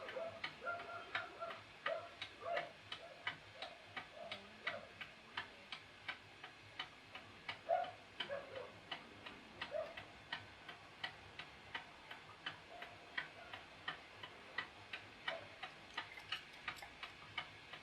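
Mechanical clock, repaired with 3D-printed parts, ticking steadily at about three ticks a second.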